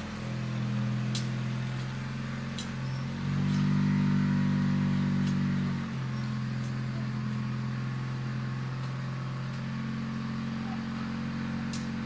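Sears Roper garden tractor engine running steadily while pulling a middle buster through the soil to dig potatoes. It revs up and gets louder for about two and a half seconds, a few seconds in, then settles back to its steady pace.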